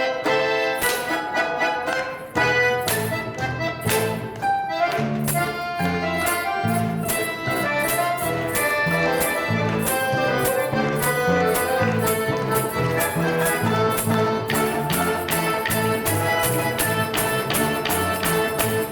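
Instrumental ensemble playing a medley of Russian folk tunes, with a stepping bass line and a steady beat.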